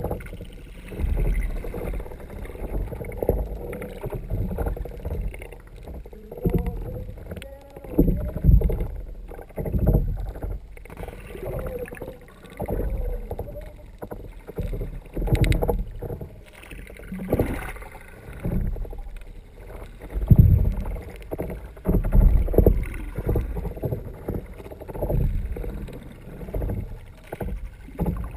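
Muffled water sloshing and knocking against a kayak hull, heard underwater through a sealed camera dive housing; the low rumble swells and falls about every two seconds with the paddling.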